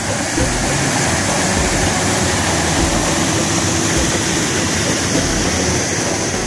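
Whitewater rushing over a rocky cascade between granite boulders: a steady, loud roar of falling and churning water.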